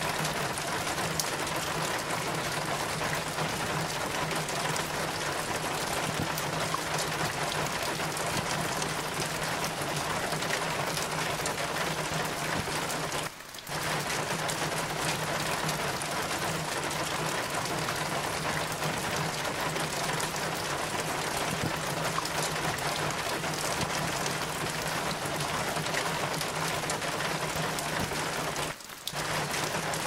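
Steady rain pouring down, an even hiss that cuts out for a split second twice: about halfway through and near the end.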